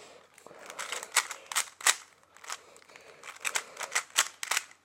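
Rubik's cube layers being twisted by hand: a quick, irregular run of sharp plastic clicks and clacks, about a dozen over a few seconds, as the final moves of the solve are made.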